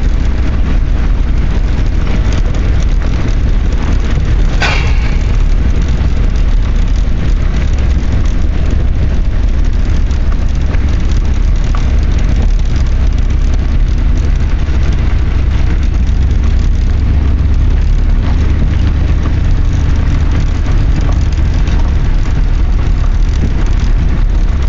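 Car driving slowly, heard from inside the car: a loud, steady low rumble of engine and road noise. There is one brief sharp sound about five seconds in.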